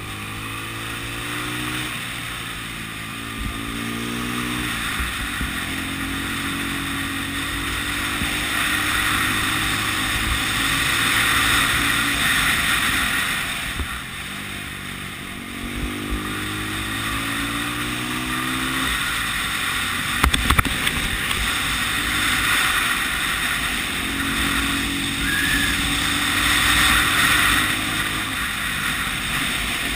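Honda CB 250 RS single-cylinder four-stroke motorcycle engine on the move. Its pitch climbs and drops several times as it accelerates out of bends and rolls off, with heavy wind rush on the microphone. A couple of sharp taps come about two-thirds of the way through.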